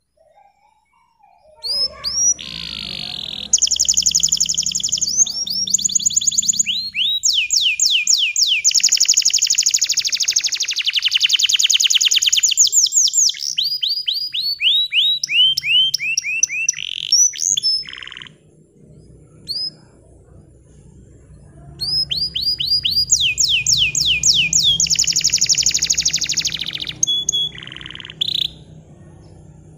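Bottle-green domestic canary singing long, fast trills and rolls of rapidly repeated high notes. One long phrase runs until about eighteen seconds in; after a short pause a second burst starts a few seconds later and ends near the end.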